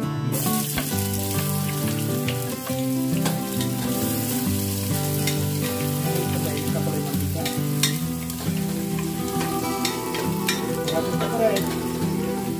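Diced red onion sizzling as it sautés in hot oil in a stainless steel pot. The sizzle starts as the onion goes in, and a wooden spoon stirring it gives a few sharp taps against the pot.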